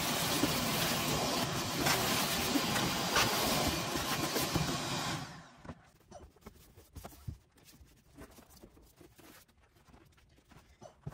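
Pressure-washer spray hissing as it blasts the cab floor clean, cutting off abruptly about five seconds in. After that come faint drips and small knocks.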